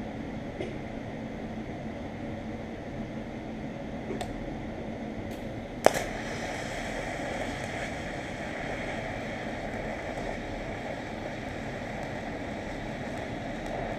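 Motor-driven wire brush wheel running steadily, cleaning up a fresh weld on steel nuts. A sharp knock comes about six seconds in, after which the rushing noise grows a little louder.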